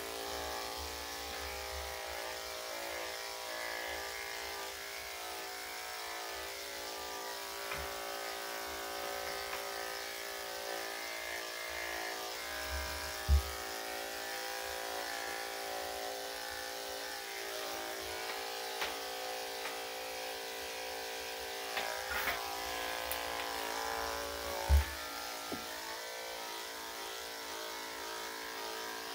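Electric dog grooming clippers with a #7 blade running with a steady hum as they cut through a Yorkshire terrier's coat. Two short low thumps stand out, one near the middle and one near the end.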